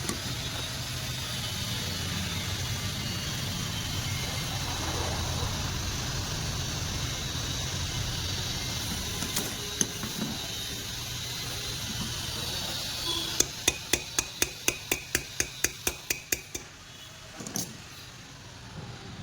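A quick run of about a dozen sharp metallic taps, four to five a second, two-thirds of the way through, with one more tap a second later, over a steady low hum and background noise.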